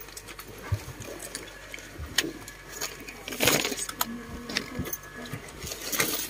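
Handling noise: scattered clicks, knocks and rustling as the phone is moved about and brushes against clothing, with a louder rustle about three and a half seconds in.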